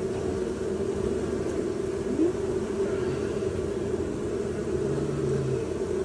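Steady hum of a large mass of honey bees buzzing around their exposed comb, a disturbed colony during a hive removal.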